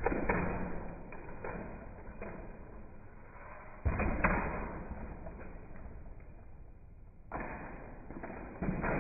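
Small brushless electric RC monster truck driven in short bursts: four sudden rushes of motor and tyre noise, each trailing off, with knocks as the truck hits the floor and box.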